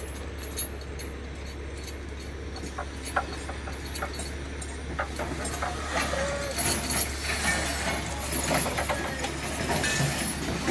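Steel wheels of an 1875 Baldwin steam locomotive creaking and clicking as it is slowly moved along a short ramp track, with the clicks and clanks growing thicker over the last few seconds. A steady low engine hum runs underneath.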